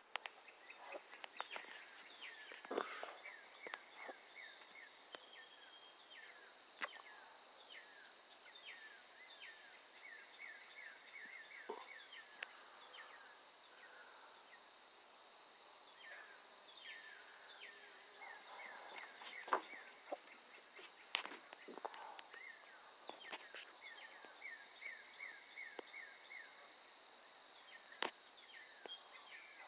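Steady, high-pitched chorus of night insects, with many short, quickly falling chirps layered over it and a few sharp clicks here and there.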